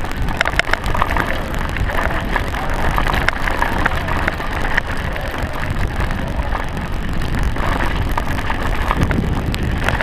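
Mountain bike riding fast down a rough dirt trail: steady wind rush and rumble on the microphone, with scattered clicks and rattles from the bike over the bumps.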